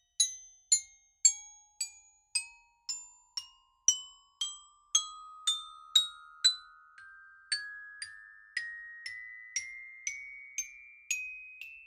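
Intro music: bright, bell-like struck notes about two a second, glockenspiel-like, over a tone that slowly rises in pitch.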